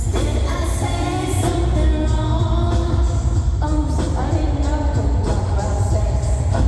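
Live pop concert music over an amplified sound system: a sung vocal melody over a heavy, steady bass.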